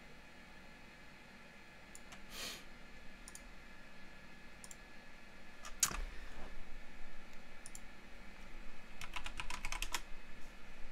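Computer keyboard keys clicking: scattered single keystrokes, one louder click about six seconds in, then a quick run of typing near the end, over a faint steady hum.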